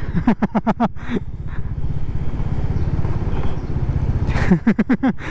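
Bajaj Dominar 400's single-cylinder engine running with a steady, even beat as the motorcycle rolls along at low speed.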